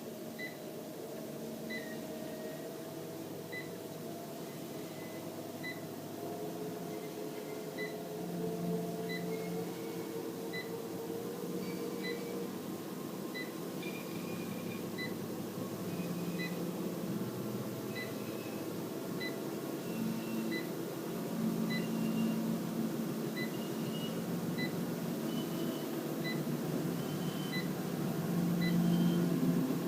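Treadmill motor and belt running, speed being raised in small steps: a short high beep from the control panel about once a second with each tenth-of-a-mph press, while a faint motor whine steps up in pitch and the running sound grows slowly louder.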